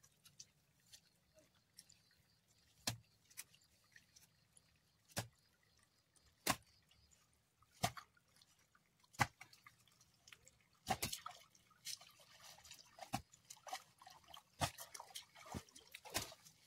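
Wet slaps and splashes in shallow muddy water, one every second or so, growing busier and splashier in the second half, as bare feet step and hands work through the mud.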